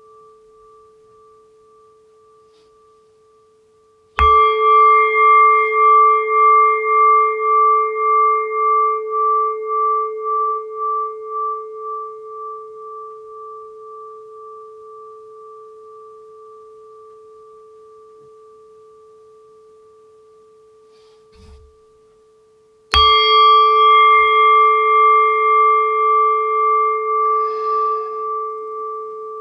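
Singing bowl struck twice, about four seconds in and again near the end. Each strike rings on in a wavering, pulsing tone that slowly fades.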